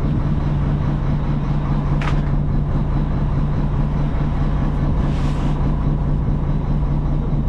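Fishing boat's engine running steadily with a low, even drone. There is a short knock about two seconds in and a brief hiss a little after five seconds.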